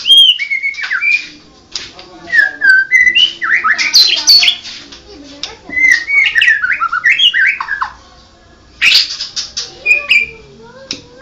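White-rumped shama (murai batu) singing: fast runs of loud whistled notes sliding up and down, mixed with bursts of short harsh notes, with a short pause about two seconds in and another near eight seconds.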